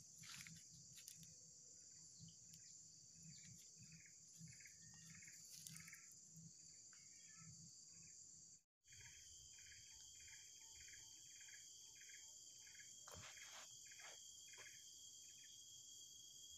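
Near silence with a faint insect chorus: a steady high drone, with a run of short chirps repeating about twice a second through the middle.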